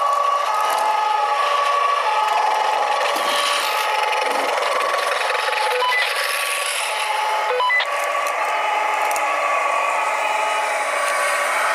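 Small electric drive motors and gearboxes of radio-controlled model fire engines and a model wheel loader whining and grinding as they drive past, over a two-tone siren from a model's sound module that switches between two pitches.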